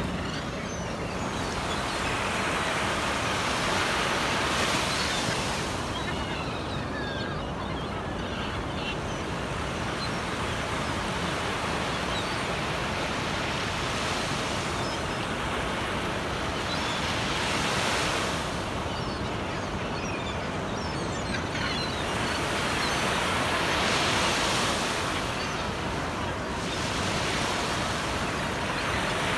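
Sea waves washing onto a beach: a steady rush of surf that swells and eases every several seconds, with a light fizz of breaking foam.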